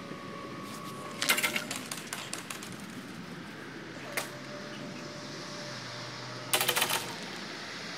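Railway level-crossing barrier arms lowering: a burst of rattling clatter as one arm comes down onto its rest about a second in, a single knock near the middle, and another short clatter near the end as the far-side arms settle, over a faint steady hum from the barrier drives.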